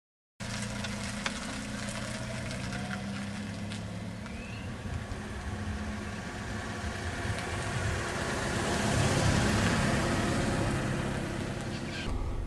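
Car engine running as a small car drives along a street, with tyre and road noise. It starts suddenly after a moment of silence and grows louder to a peak about nine seconds in.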